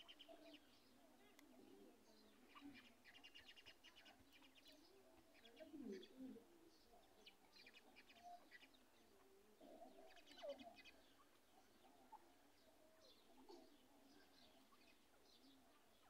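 Faint chirps from grey francolins, in short runs of quick high ticks, mostly in the first half and again about ten seconds in.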